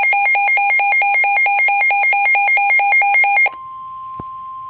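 Emergency alert attention signal for an Environment Canada severe thunderstorm warning: a loud electronic tone pulsing about five times a second. About three and a half seconds in it gives way to a quieter steady single-pitch warning tone, with one faint click during it.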